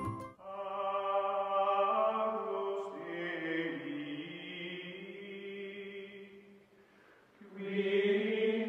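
Outro music: a chanted vocal holding long, drawn-out notes. It fades out about six and a half seconds in, and a second phrase comes in about a second later.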